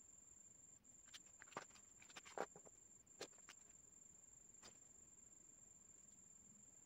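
Faint clicks and taps of a black fineliner pen being picked up, handled and set onto paper, bunched in the first few seconds with one last tap a little later, over a steady faint high-pitched whine.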